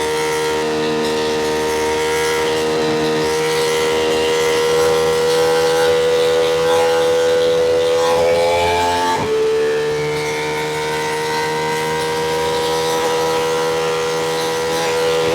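2025 Ducati Panigale V2's V-twin engine running under load, its pitch slowly climbing; about nine seconds in it revs up quickly and drops sharply at an upshift, then climbs again.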